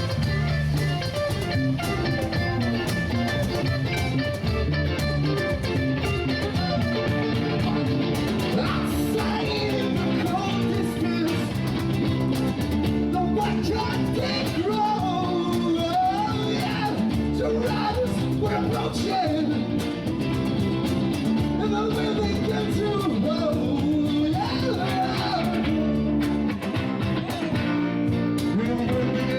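Live rock band playing an instrumental passage: an electric guitar lead with bending notes over bass and drums.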